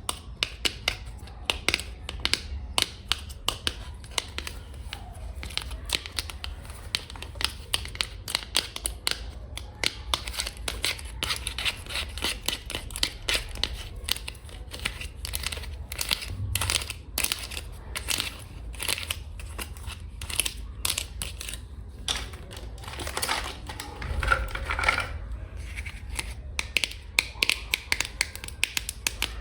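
Long fingernails tapping rapidly on a hard surface, making a dense run of sharp clicks, with a short scratchy, crinkling stretch near the end.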